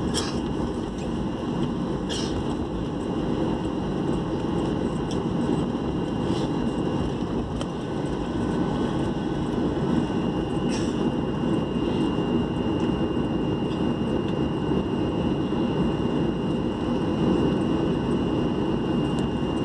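Airliner cabin noise while taxiing: a steady rumble of the engines and rolling wheels heard through the fuselage, with a few light clicks or rattles. A thin steady whine comes in about ten seconds in.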